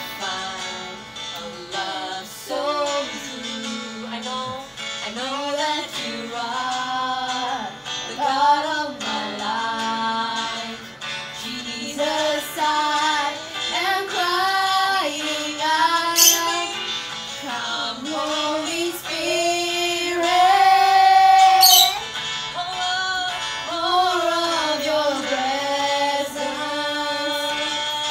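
Girls singing a children's worship song over an instrumental backing with guitar. A long held note about three quarters of the way through is the loudest part.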